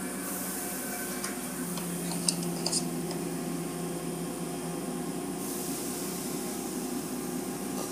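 Automatic car wash heard through a glass viewing window: water spraying in a steady hiss over a low machinery hum, with a few short clicks about two and a half seconds in. The hiss drops away about five and a half seconds in.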